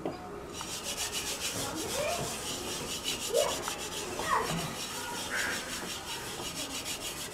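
Hand squeezing and rubbing mashed boiled potato filling against a stone mortar, a steady scratchy rubbing made of quick repeated strokes.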